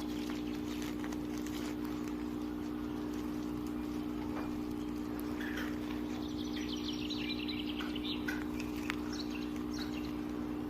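A steady low hum with scattered faint clicks and chirps over it, including a short falling trill about six seconds in.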